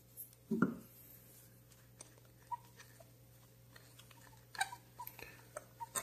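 Small metal parts and a screwdriver being handled against the metal body of a vintage Ronson gas lighter during reassembly. A soft thump comes just under a second in, then faint scattered clicks and taps, most of them near the end as the screwdriver is set into a fitting in the base.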